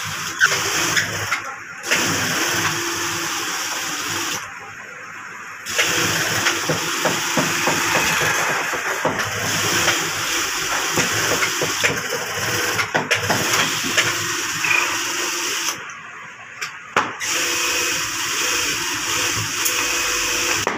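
Industrial sewing machine running in long stitching runs as it sews a leather work glove, a steady fast needle chatter that stops twice for a second or so, about a quarter of the way in and again about three-quarters through.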